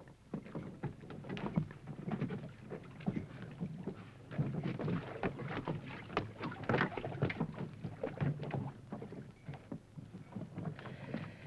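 Irregular splashing and slapping of water and herring on a fishing boat's deck, a dense run of short, uneven wet cracks.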